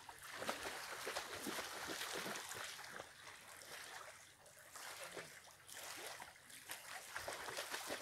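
Lake water splashing and sloshing as people swim and wade in the shallows, with many small, quick splashes over a light steady wash.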